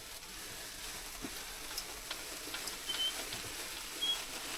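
Falling snow making a steady, fine crackling hiss, with a few faint, short high chirps over it.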